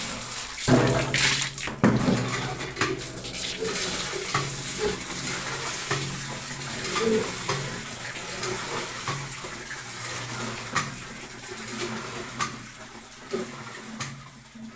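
Water splashing and sloshing in metal pots and buckets, with repeated clinks and clatters of the pots, as live fish are washed and handled in them.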